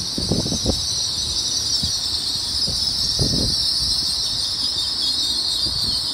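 LNER Azuma train braking: a steady high squeal as it slows to a stop, with a few low thumps from underneath.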